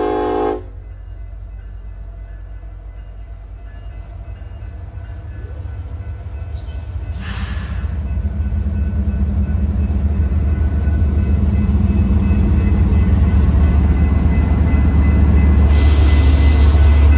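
Diesel freight locomotive horn sounding and cutting off about half a second in, from a Union Pacific EMD SD70ACe in Southern Pacific heritage paint. Then the locomotives pass close by at the grade crossing, and the low diesel engine rumble grows steadily louder as the trailing unit comes by.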